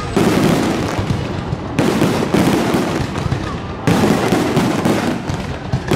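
Castillo fireworks display: shells bursting one after another over dense, continuous crackling, with fresh loud volleys just after the start, about two seconds in and about four seconds in.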